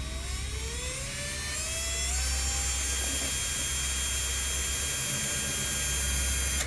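Intro sound effect: a droning, whining tone over a low hum, rising in pitch for about the first three seconds and then holding steady at a high whine.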